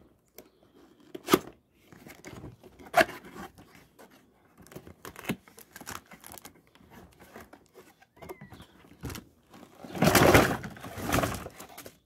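Cardboard box and packaging being handled: scattered taps and short scrapes, then about two seconds of louder rustling and crinkling near the end as the plastic-wrapped hair dryer is lifted out.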